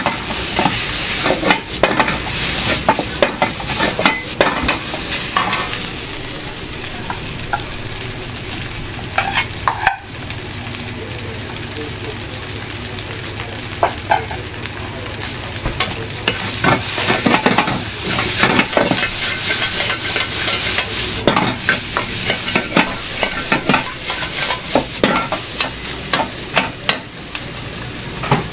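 Fried rice sizzling in a wok over a gas burner, with a metal ladle repeatedly scraping and clanking against the wok as the rice is stirred and tossed. The clanks come in quick flurries in the first few seconds and again through the second half, with a stretch of mostly steady sizzling in between.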